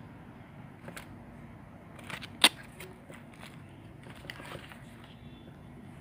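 Handling noise as a shoe's hang tag and its box are moved about: scattered clicks and rustles, the loudest a sharp click about two and a half seconds in, over a steady low background hiss.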